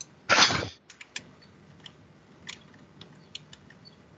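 A short burst of rushing noise about half a second in, then scattered faint clicks from a computer keyboard and mouse as the arrow keys and buttons are pressed.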